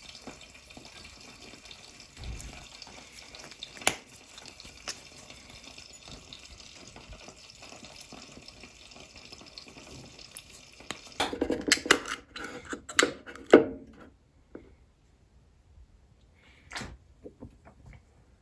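Kitchen tap running steadily into a sink, then stopping. About eleven seconds in come several sharp knocks and clatters of kitchen utensils.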